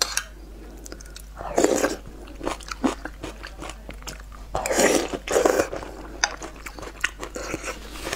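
Close-miked wet chewing and mouth sounds of a person eating a soft, saucy egg, tomato and green-pepper stir-fry, with short clicks throughout and two louder bursts, one about one and a half seconds in and a longer one around five seconds in.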